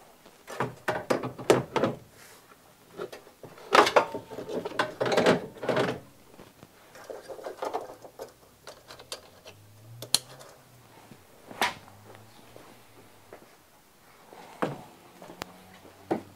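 Irregular knocks, clicks and rattles of dashboard panels and wiring connectors being handled and pushed into place under a car's dash, coming in several short clusters with quiet gaps between.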